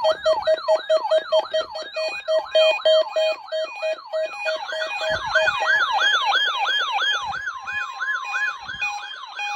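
Weather alert radio receivers sounding their alarms at once, set off by the NOAA Weather Radio weekly test. The main sound is a rapid siren-like yelp, falling in pitch about four times a second, with a pulsing beep through the first half and steady tones layered over it.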